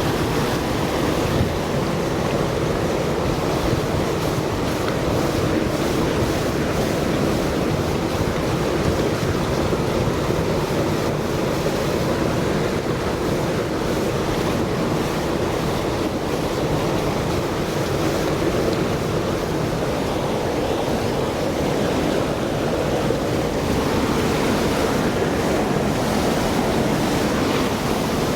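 Steady rushing of flowing river water, an even noise that does not let up.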